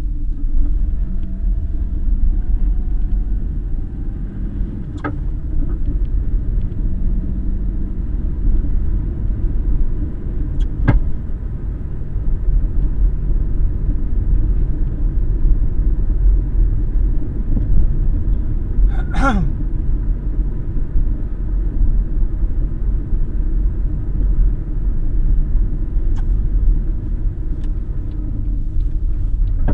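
Lada Vesta running, a steady low rumble, with three sharp knocks about 5, 11 and 19 seconds in, the last with a short falling squeal. Knocks like these over bumps and in turns are what the owner traces to a broken right engine mount.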